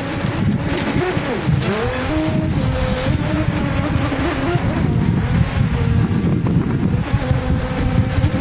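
Dual brushless electric motors of a 22-inch RC jet ski whining as it runs and turns on the water, the pitch swooping down and back up about a second in, then holding fairly steady. Under it, a low rush of wind on the microphone.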